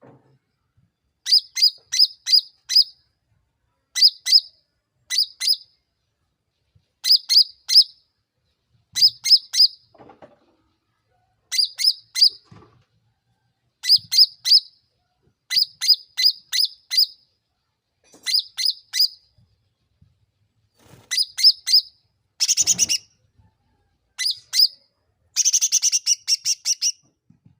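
Cucak ranting (a bulbul kept as a songbird) singing: short bursts of two to five quick, high, sharp notes repeated every second or two, then two faster, denser trills near the end.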